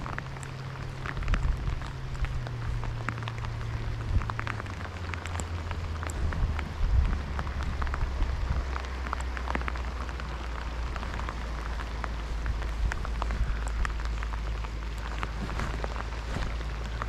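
Rain falling on the lake and boat: a steady hiss with many small drop hits. Under it runs a low motor hum that drops in pitch about four seconds in.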